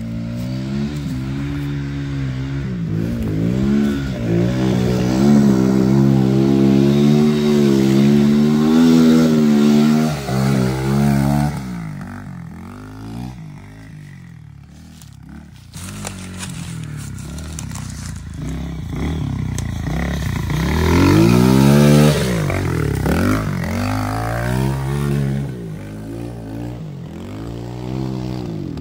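Small dirt bike engine revving up and down as it churns along a muddy trail, its pitch rising and falling with the throttle. It is loud for several seconds, fades for a few seconds about halfway through, then comes back with a rising rev a little past two-thirds of the way in.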